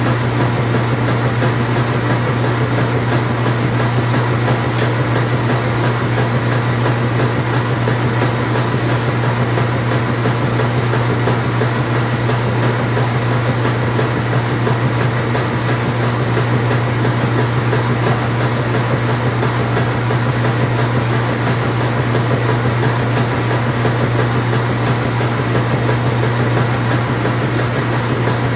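Engine running at a constant speed: a steady, loud low drone that does not change in pitch or level.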